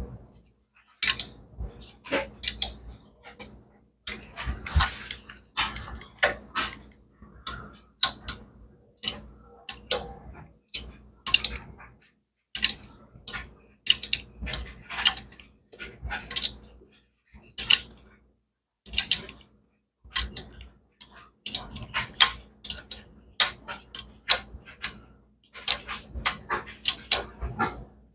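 Hand tools clicking and clinking on metal while working the bolts of a motorcycle transmission, in irregular clusters of sharp clicks a second or two apart.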